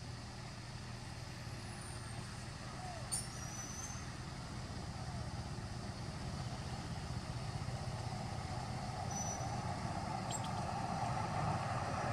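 Steady low engine rumble of a motor vehicle, growing gradually louder, with a brief high squeak about three seconds in.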